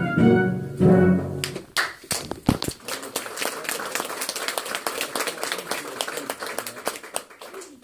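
Last chords of the musical accompaniment ring out and stop about a second and a half in, and the audience breaks into applause.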